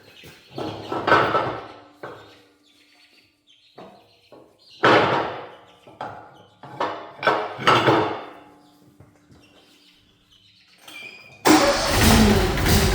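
A few scattered clattering knocks, then about a second and a half before the end the log splitter's gasoline engine starts and runs steadily.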